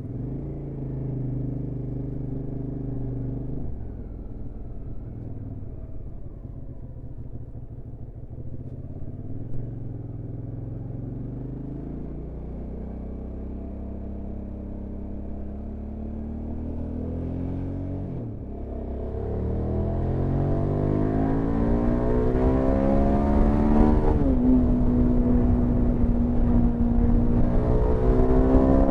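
Hyosung GT650R's V-twin engine running on the road, steady at first, then about two-thirds of the way through the pitch drops and climbs under acceleration, with a gear change and another climb near the end. A rushing haze of wind grows as speed builds.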